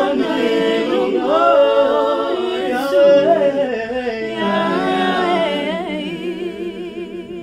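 Two women and two men singing a slow Lingala worship song a cappella in harmony, holding long notes with vibrato. The voices fade out near the end.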